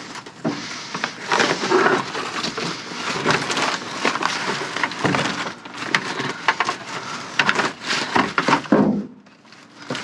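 Pieces of wood knocking, scraping and cracking against each other as they are pulled loose and shifted, a run of irregular clatters that stops about nine seconds in.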